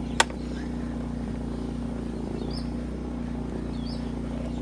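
Small petrol generator running steadily with a low hum. A single sharp click of a hand tool on the carburetor's bolt comes about a quarter second in.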